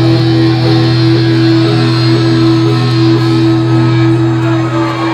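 Live rock band music, with a loud electric guitar holding sustained notes over a deep held bass note and no vocals.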